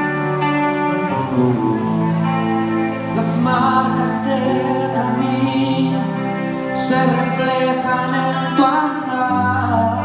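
Live band of electric guitars, bass and drums playing the instrumental intro of a slow song, with sustained guitar chords and melody. There are cymbal splashes about three seconds in and again near seven seconds, and a deep bass note comes in near the end.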